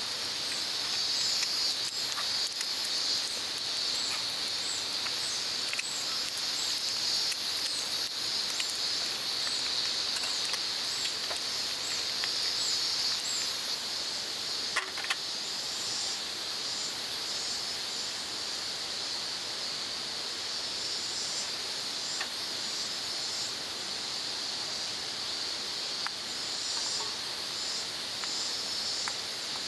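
Steady chorus of insects: a constant high buzz with rapidly pulsing chirps above it, and a few light clicks about halfway through.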